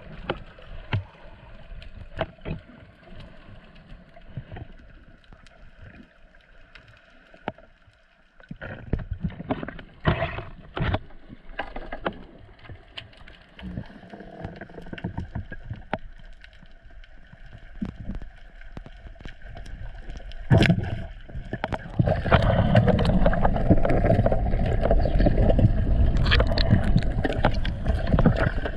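Underwater sound on a camera carried by a freediver: muffled water noise with scattered clicks and crackles. About two-thirds of the way through, it gives way to a louder, steady rushing water noise.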